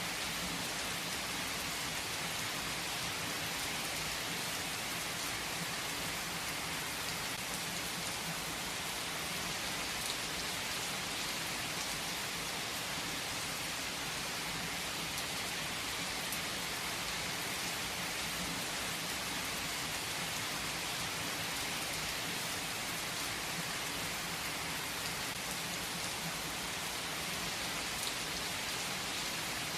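Steady rain falling, an even hiss with an occasional sharper drop tick.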